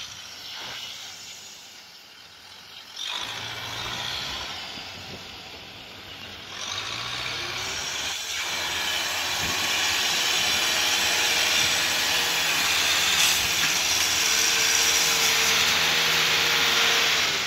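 Kubota M6040SU tractor's diesel engine running under load as it pulls a loaded trailer through mud, with a strong hissing noise over the engine. It grows louder in steps about three and six seconds in and stays loud through the rest.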